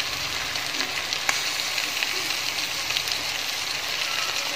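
Sliced onions and green chillies frying in hot oil, with ginger and garlic paste just added: a steady sizzling hiss with a few faint clicks.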